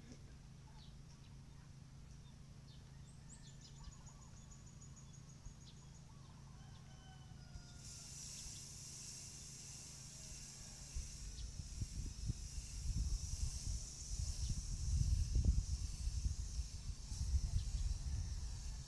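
Aerosol spray-paint can hissing in one steady spray that starts abruptly about eight seconds in and keeps going. Wind rumbles on the microphone from about eleven seconds, and faint bird chirps come before the spraying starts.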